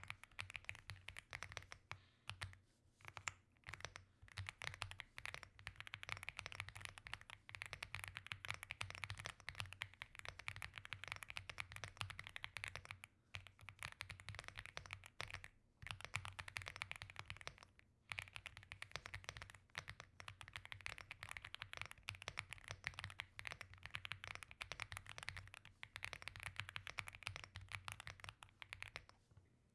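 Steady typing on an Aula F75 gasket-mount 75% mechanical keyboard with stock LEOBOG Reaper linear switches, a fast run of key clacks broken by a few brief pauses.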